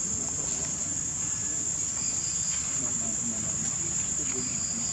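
Steady, high-pitched chorus of insects such as cicadas or crickets, with a second, fainter trill below it that comes and goes.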